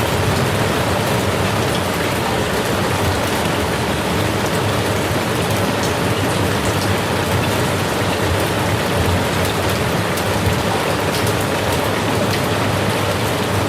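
Steady rain falling on a surface, a dense even hiss with scattered drop ticks and no thunder.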